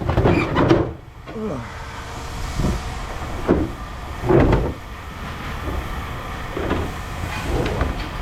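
A heavy engine running steadily with a low rumble, with a few short louder sounds breaking in over it.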